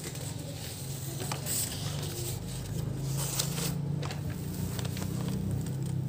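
Paper being handled: scattered rustles and scrapes of a sheet moving under the hand, over a steady low hum.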